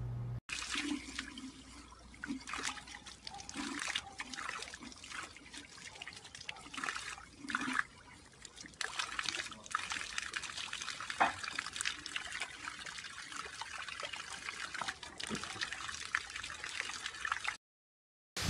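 Water trickling and splashing in a small garden fountain pool, with irregular splashes as a dog moves about in the water.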